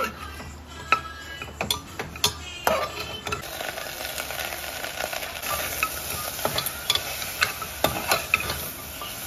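Pork frying in an aluminium pressure cooker, stirred with a metal spoon that clinks and scrapes sharply against the pot's sides. A steady sizzle grows louder about three seconds in.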